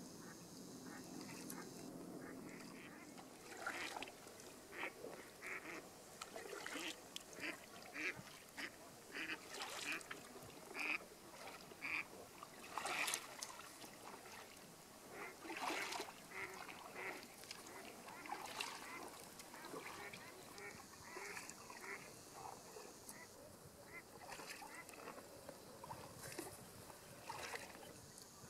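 Waterfowl calling, faint: many short calls in irregular succession, starting about three and a half seconds in.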